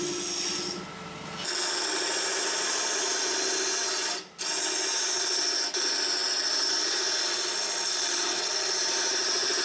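Wood lathe running while a negative rake scraper cuts a spinning maple burl and epoxy resin blank: a steady scraping hiss over the motor's hum. The sound drops out briefly about a second in and again a little after four seconds.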